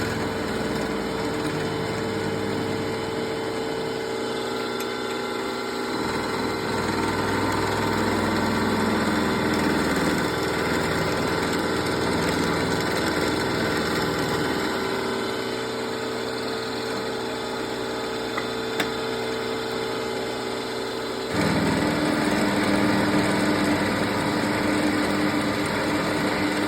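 Manual milling machine running and cutting a thick steel plate, a steady motor hum mixed with cutting noise. The hum shifts a few times and drops to a lower tone about 21 seconds in.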